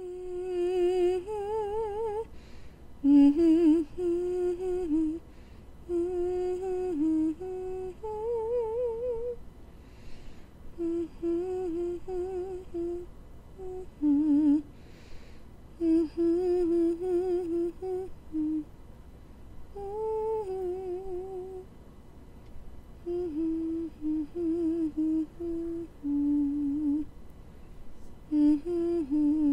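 A woman humming a slow tune in short phrases with pauses, her voice wavering with vibrato.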